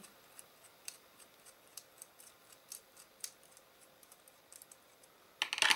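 A screwdriver turning a machine bolt out of a brass insert in a plastic box: faint, scattered small clicks and ticks of metal on metal and plastic, then a louder burst of clicking and clattering near the end.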